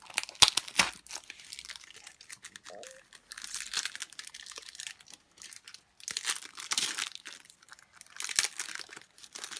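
Plastic trading-card pack wrapper crinkling and being torn open by hand, in four spells of crackling with short pauses between.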